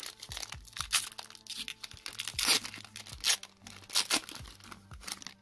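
Foil trading-card pack being torn open and crinkled by hand: a run of short crackling rips, loudest about two and a half, three and four seconds in.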